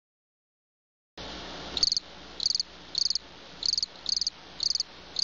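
A cricket chirping: short high chirps of a few rapid pulses each, nearly two a second, seven in all, over a faint steady hiss. It starts about a second in, after silence.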